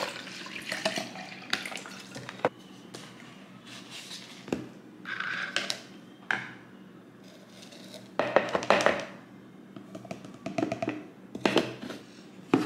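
Water pouring from a plastic jug into a plastic shaker bottle, then scattered clicks, taps and scrapes of scooping pre-workout powder from a plastic tub and fitting the shaker's lid. The clicks cluster about eight and again about eleven and a half seconds in.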